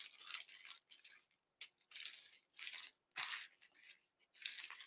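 Large black plastic bag rustling and crinkling faintly in irregular bursts as it is folded on the diagonal and smoothed flat by hand.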